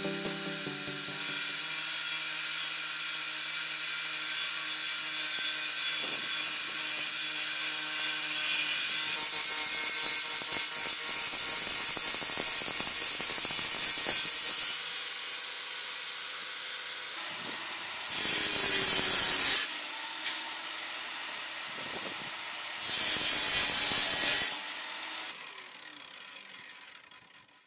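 Homemade table saw's electric motor running with its circular blade spinning, a steady whine. Twice, at about 18 and 23 seconds in, it makes a louder, harsher sound for about a second and a half as it cuts through wood. Near the end the sound dies away as the motor is switched off and the blade spins down.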